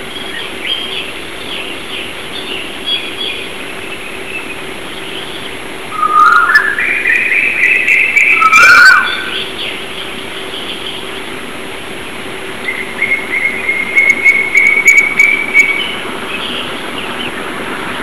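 A dawn chorus of birds chirping and twittering, with one louder song gliding upward from about six to nine seconds in and a fast trill a little later, over a steady background hiss and faint hum.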